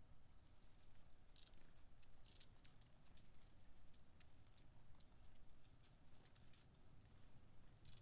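Long-tailed tits giving short, thin high calls: two about a second apart early on, then again near the end. Faint light patter of water from the birds bathing.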